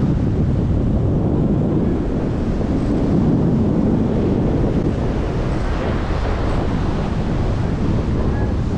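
Steady wind buffeting the microphone, over the wash of waves breaking against a rocky shoreline.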